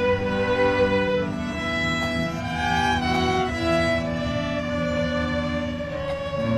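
Slow instrumental music on bowed strings: a violin holding long notes over lower string parts, the notes changing every second or so.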